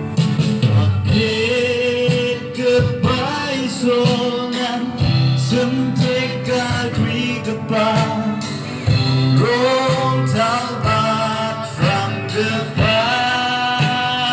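Music: singing in long, wavering held notes over instrumental backing with a steady beat.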